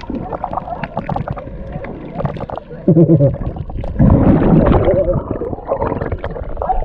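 Water gurgling and sloshing close to the microphone, with knocks and short, wavering, muffled calls about three and four seconds in.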